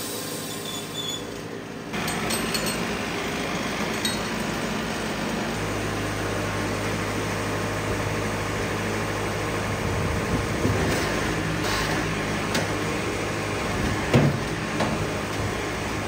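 Wood-Mizer band sawmill machinery running with a steady mechanical noise. The noise changes abruptly about two seconds in, a low hum comes in a few seconds later, and a few sharp knocks and clinks come near the end.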